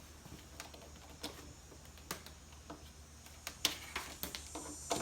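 Light, irregular clicks and taps of wires and small plastic parts being handled, coming more often near the end, over a faint steady low hum.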